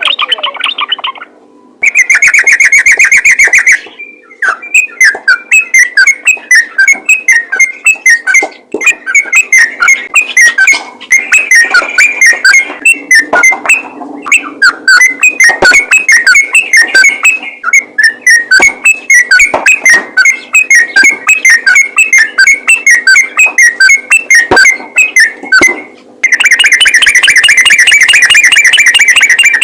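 Yellow-vented bulbul calling: a fast, continuous run of chattering notes, with a very loud harsh trill about two seconds in and again for the last few seconds, over a faint steady hum.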